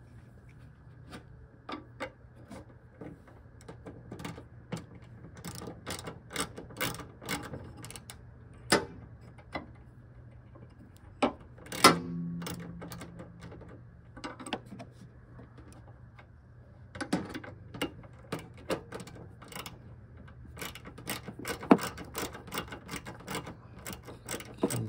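Ratcheting wrench clicking in quick runs as it backs out a hood-hinge bolt, with a few sharper knocks, the loudest about twelve seconds in.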